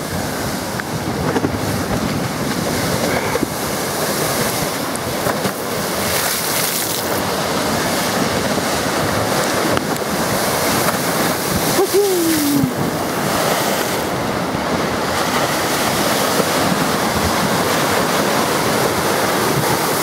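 Big wind-driven lake waves surging and breaking against a concrete seawall, with spray washing over, a loud steady rush of water throughout.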